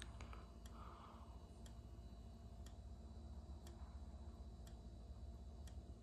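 Faint sharp tick about once a second from a fire alarm speaker strobe firing its flash, its sounder silent, set off by a smoke detector in alarm. A low steady hum runs underneath.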